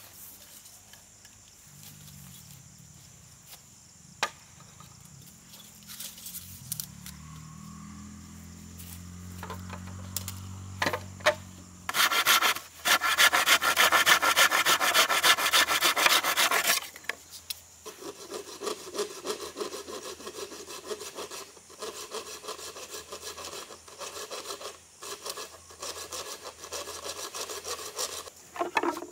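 Hand saw cutting through a bamboo pole. The strokes are fast and loud for about five seconds near the middle, then carry on more quietly and steadily. A low hum and a few knocks come before the sawing starts.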